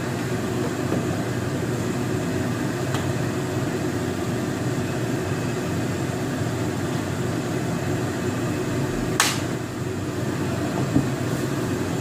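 Steady low hum of a running fan, with a sharp click about nine seconds in and fainter ticks about three and eleven seconds in.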